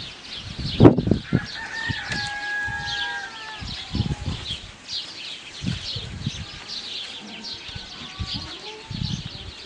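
Birds chirping rapidly and repeatedly. A sharp thump comes about a second in, the loudest sound, followed by a drawn-out bird call lasting about two seconds, like a rooster's crow. A few dull thuds come later.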